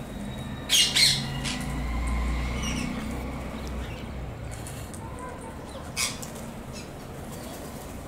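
A flock of rose-ringed parakeets flapping their wings and squawking, with loud sharp bursts about a second in and again about six seconds in.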